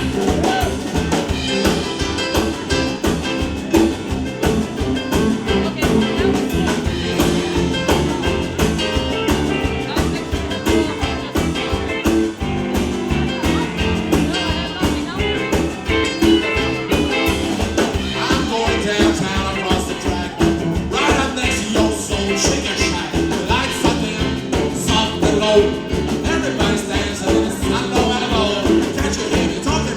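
Live rock and roll band playing an up-tempo boogie-woogie number, with drums keeping a steady driving beat under bass and guitars.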